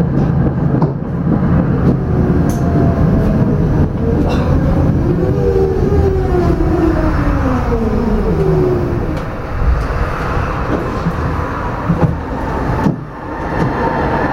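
Tram rolling on its rails, the electric traction motors' whine falling steadily in pitch over several seconds as it brakes for a stop. The running noise dips briefly near the end.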